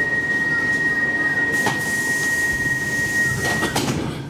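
Door-closing warning on a Stockholm Metro C14 train: one steady high-pitched beep held for about three and a half seconds, then the sliding doors shut with a clatter near the end.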